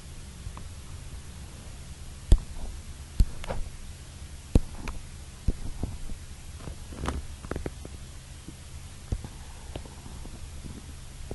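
A low steady hum with a scattering of short knocks and clicks, about six of them, the loudest a little over two seconds in.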